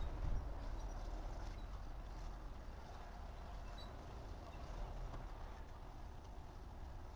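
Heavy equipment engines running at a distance while a derailed hopper car is lifted: a low steady rumble, a little louder at the start, with a few faint metallic ticks.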